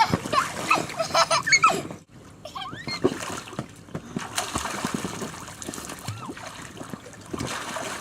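Water splashing and sloshing in a swimming pool, with a person's voice in the first two seconds, before a sudden break.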